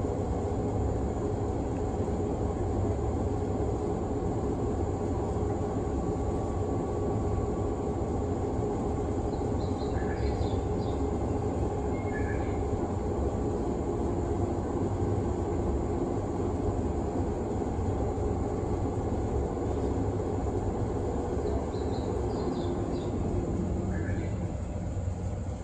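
JR East 189 series electric train standing at a platform, its onboard equipment giving a steady low hum with a few held tones. Faint short high chirps come twice, around the middle and near the end.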